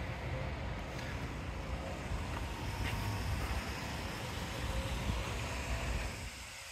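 Low, fluctuating rumble of wind buffeting the microphone, mixed with the hum of street traffic, which drops away abruptly about six seconds in.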